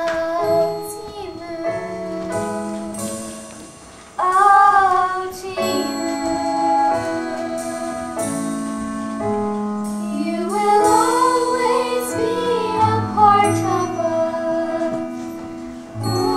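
Children singing a musical-theatre number over an instrumental accompaniment of held notes that step from chord to chord; a sung line comes in strongly about four seconds in and again around ten seconds in.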